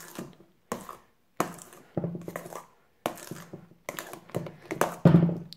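Foamy shaving-cream slime being squished and kneaded by hand in a stainless steel bowl: wet squelching with small pops, in four or five separate bursts. The slime is still under-activated and gooey, not yet ready.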